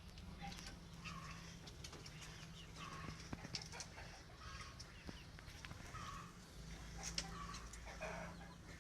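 Chickens clucking softly, short calls about once a second, over a low steady hum.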